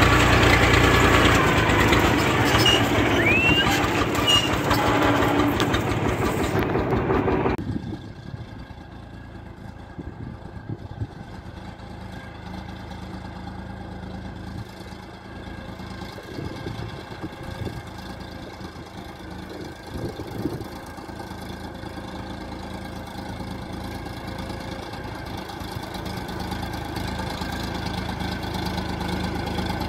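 Farm tractor engine running steadily while pulling a cassava planter, loud and close for the first seven seconds or so. Then it drops suddenly to a more distant engine that slowly grows louder as the tractor approaches.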